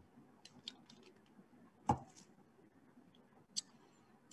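A few light clicks over quiet room tone, the sharpest about two seconds in and another a second and a half later.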